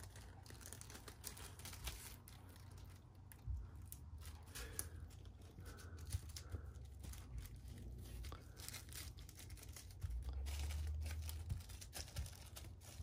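Small plastic zip-top bags of diamond-painting drills crinkling and rustling in a series of short crackles as they are handled and their seals checked. About ten seconds in, a low rumble lasts for a second or so.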